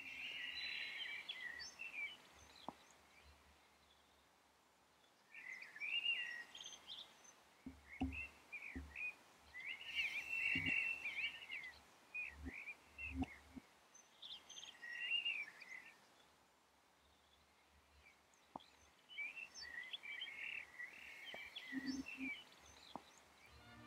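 Birds singing in short twittering phrases of chirps, with quiet pauses between the phrases. A few soft low thuds come in the middle.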